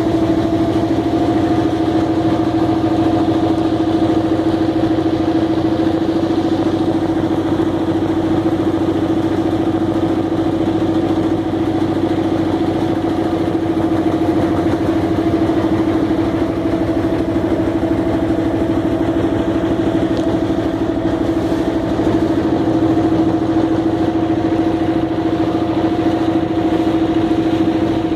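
A small wooden river boat's engine running steadily at an even pitch, heard from on board.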